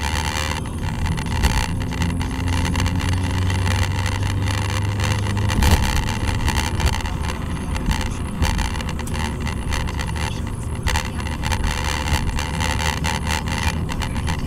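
Engine and road noise inside a moving car, picked up by a dashboard camera: a steady low drone, with the engine note rising slowly over the first few seconds as the car gathers speed. A single thump a little before halfway is the loudest moment.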